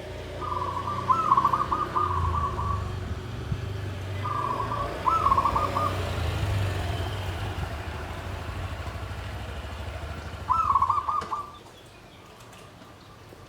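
Zebra dove (perkutut) singing three phrases, each a rolling purr followed by a few quick coos. A low steady rumble runs underneath and stops shortly after the last phrase.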